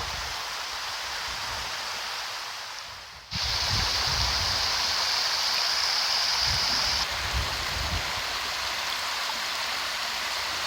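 Rushing water of a hill-stream waterfall, a steady hiss of water over rocks. About three seconds in it fades, then cuts suddenly to a louder stretch of the same rushing.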